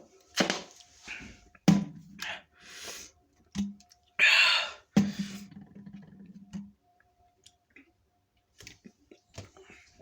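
A person's breath and mouth sounds after chugging a soda: a sharp breathy exhale about four seconds in, followed by a low closed-mouth hum, with a few short clicks and knocks of handling.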